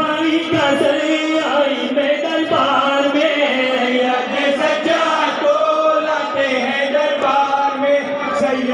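Men's voices chanting a nauha, a Shia mourning lament, amplified over a loudspeaker, in a steady unbroken chant.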